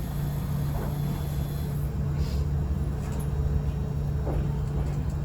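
Electric local train running, heard from inside the front of the car: a steady low hum under rumbling wheel and track noise.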